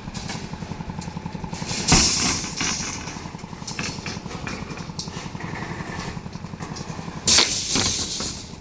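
A small engine idling steadily with an even low pulse, with two louder bursts of noise, about two seconds in and again near the end.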